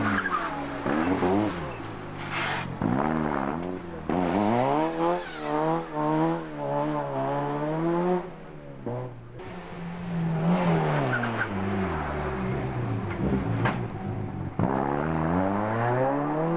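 Rally car engine revving hard, its pitch climbing in steps with gear changes. It backs off past the middle and picks up again sharply near the end.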